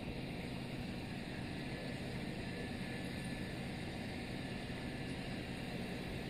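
Aquarium filter equipment running: a steady motor hum with an even wash of water noise that does not change.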